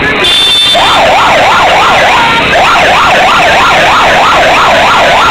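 Emergency vehicle's electronic siren on a fast yelp, its pitch sweeping quickly up and down about two to three times a second. It starts about a second in, breaks off briefly, then carries on, loud.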